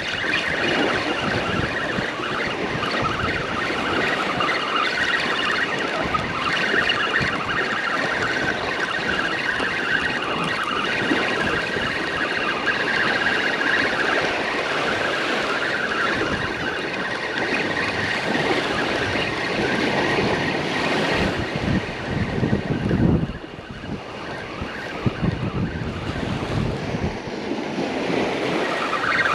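Strong wind buffeting the microphone over the wash of ocean surf on a beach, a steady rushing noise that eases briefly for a moment about three-quarters of the way through.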